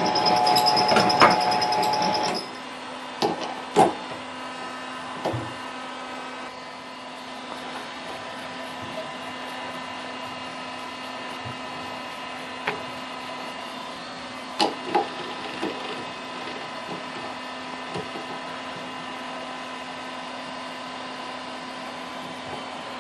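A small lathe motor whining steadily, cut off about two and a half seconds in. Then a steady low hum with scattered sharp metal clicks and knocks as parts and tools are handled at the lathe.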